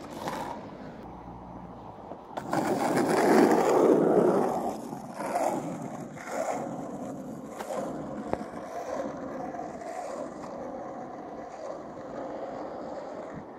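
Skateboard wheels rolling on asphalt, with the rolling loudest about two to four seconds in and a few sharp clicks from the board along the way.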